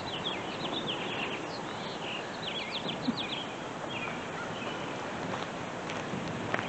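Small birds chirping: quick runs of short, high notes in several bursts, the busiest about two and a half seconds in, over steady outdoor wind noise.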